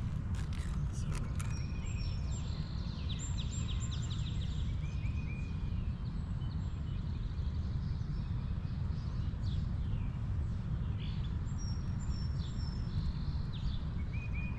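Steady wind rumble on the microphone, with birds chirping and trilling throughout. A few sharp clicks come in the first second and a half.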